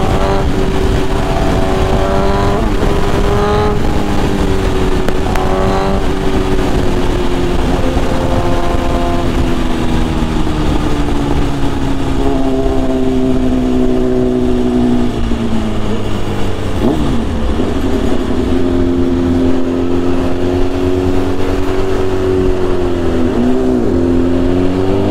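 Inline-four superbike engine running at steady riding revs under a haze of wind and road noise. Its pitch sags slowly through the middle, with two brief sharp dips and recoveries in the second half.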